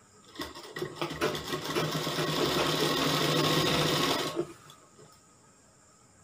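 Sewing machine stitching a cloth binding strip onto a garment. It starts with a few separate stitches about half a second in, speeds up into a fast steady run, then stops suddenly after about four seconds.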